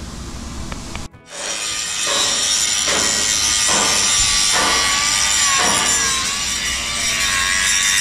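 Cordless angle grinder cutting steel. It starts about a second in and runs steadily, with a high hiss of the disc on metal and a motor whine that wavers as the disc bites.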